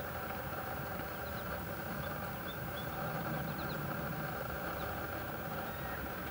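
Steady low mechanical hum, like an engine running, with a few faint, short high chirps about halfway through.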